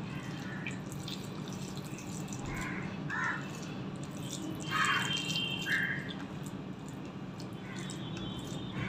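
Fingers mixing rice into soft, mushy raw papaya curry on a steel plate: wet squishing and small sticky clicks, with a few louder squelches.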